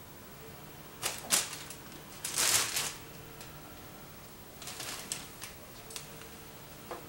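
A crumpled plastic shopping bag crinkling in short, irregular bursts as a kitten pushes into and brushes against it. The longest crinkle comes about two seconds in, with smaller rustles later.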